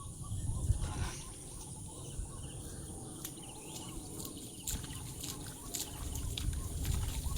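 Outdoor rural ambience: an uneven low rumble with faint bird calls and a few short clicks and chirps in the second half.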